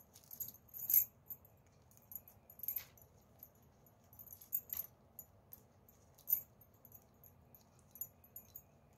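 Plastic craft wire strips clicking and rustling against each other as they are threaded through and pulled tight in a woven pouch: scattered irregular light ticks and rattles, the sharpest about a second in and about six seconds in.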